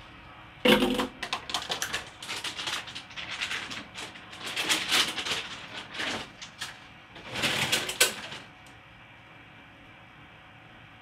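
Plastic packaging crinkling and rustling as a new spool of 3D-printer filament is unwrapped from its bag, in uneven crackly bursts, starting with a sharp crackle about a second in and dying away near the end.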